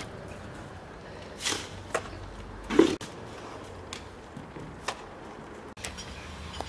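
Cookware being handled: a handful of separate knocks and clinks, the loudest a little under three seconds in.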